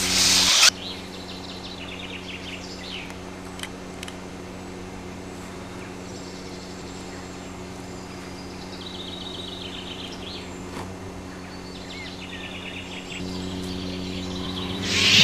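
Steady low electric hum of a lightsaber sound effect, growing louder near the end, with birds chirping in short trills. A loud rushing swish cuts off about half a second in, and another swells just before the end.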